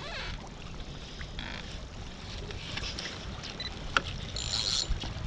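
Water lapping against a kayak hull with wind on the microphone, a single sharp click about four seconds in and a short hiss shortly after.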